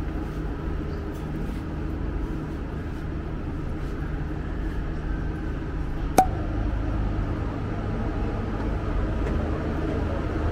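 Steady low rumble of a passenger ferry's engines under way, with a faint hum in it; a single sharp click about six seconds in.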